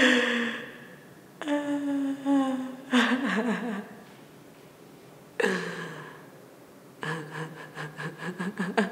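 A woman crying hard: four drawn-out wailing sobs with pauses between them, some falling in pitch, then a run of quick, catching sobs over the last two seconds.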